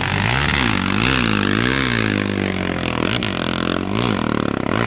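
Sport ATV engine revving up and down over and over as the quad churns through a deep mud hole, with water and mud splashing off the spinning tyres.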